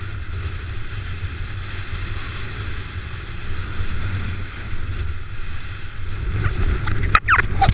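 Wind buffeting the camera microphone of a kitesurfer riding over choppy water, a steady low rumble under the hiss of water rushing past the board. Near the end a few sharp splashes or knocks and short gliding sounds cut through.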